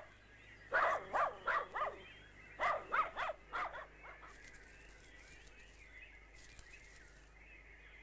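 Dogs barking in two quick runs of short barks, about four barks each, stopping about four seconds in.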